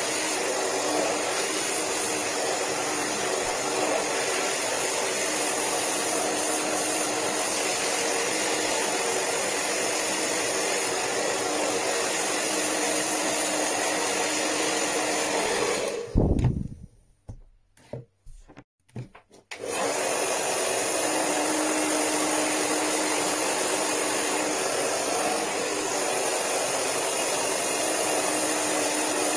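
Handheld hair dryer blowing steadily at full power. It cuts out for about four seconds past the middle, with a brief low burst as it stops and a few short noises in the gap, then runs steadily again.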